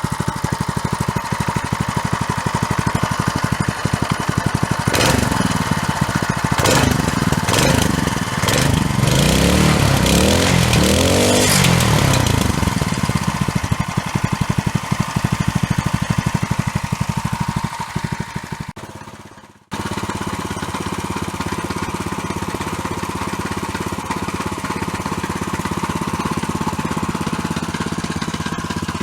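Freshly rebuilt single-cylinder 170F petrol engine of a walk-behind tractor running, with its speed governor removed for maximum revs. It is revved up and down several times, then slows and dies away a little past halfway, and is then heard running steadily again.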